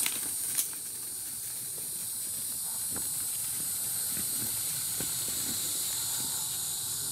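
A steady, high-pitched chorus of insects, with a sharp click about half a second in.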